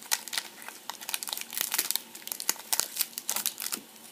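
Foil wrapper of a Pokémon trading-card booster pack crinkling as it is opened and the cards are pulled out: a quick, irregular run of sharp crackles.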